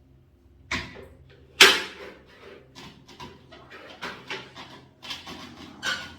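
A series of knocks and clatter from things being handled and set down, with one sharp bang about a second and a half in, over a faint steady hum.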